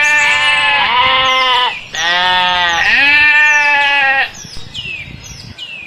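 Sheep bleating: two long, wavering bleats, the second starting about two seconds in, followed near the end by faint high chirps.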